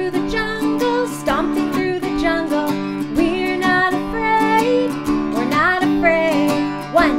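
A woman singing a children's song while strumming an acoustic guitar in a steady rhythm.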